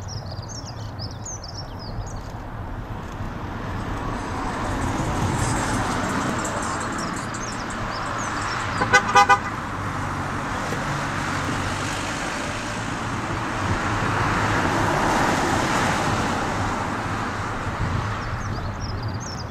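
Distant rushing jet noise from a Boeing 747-400's four engines on final approach, swelling and easing twice. About halfway, three quick horn toots are the loudest sound. Small birds chirp faintly near the start.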